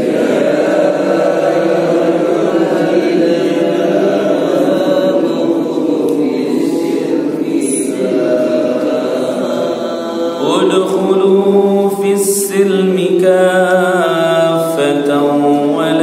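A group of men recite a Quranic verse together in a chanted tone, repeating it after their teacher, their voices overlapping unevenly. About ten seconds in, a single man's voice takes over, chanting the next phrase in a melodic recitation.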